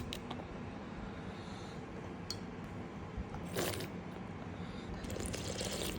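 Steady low room noise with a few brief soft handling noises: a faint click about two seconds in, a short rustling hiss just past halfway, and more soft rustling near the end.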